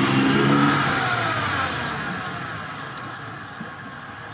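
A vehicle engine revving, then falling in pitch and fading over about two seconds.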